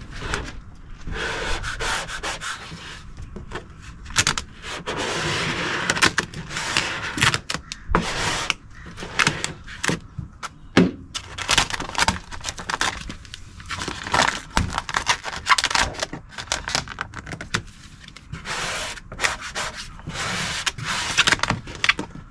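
Vinyl wrap film being worked onto a car door with a handheld wrap squeegee: repeated rubbing, scraping strokes a second or two long, with short clicks and crackles of the film between them.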